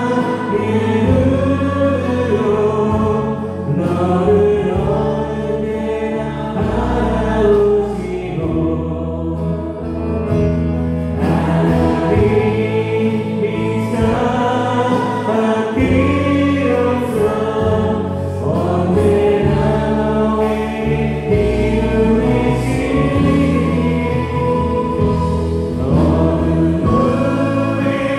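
A church praise band playing a gospel worship song: a group of voices sings together over a Yamaha Montage 8 keyboard, bass guitar and drums.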